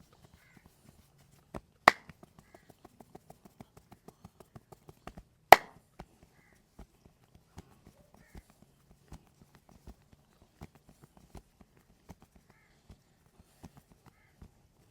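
Hands working a head massage: a fast, even run of taps, about five a second, set between two loud sharp cracks about two and five and a half seconds in, then slower scattered taps.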